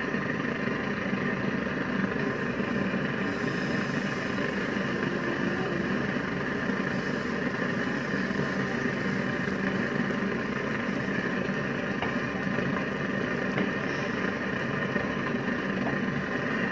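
A steady machine hum, like a motor or fan running, holding one level throughout.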